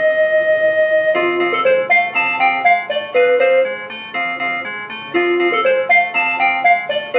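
Electronic school bell playing a chiming melody that signals a class change: one held note for about a second, then a quick run of bright notes.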